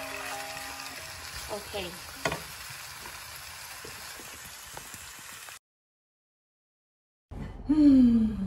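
Stir-fried vegetables sizzling in hot oil in a frying pan, stirred with a wooden spoon, with a sharp tap or two of the spoon; the sizzle cuts off suddenly about two-thirds of the way through. Near the end a woman's voice sounds loudly, falling in pitch.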